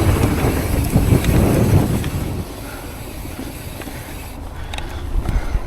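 Wind buffeting a chest-mounted camera's microphone as a low, even rumble. It drops away about two and a half seconds in, leaving a few light ticks near the end.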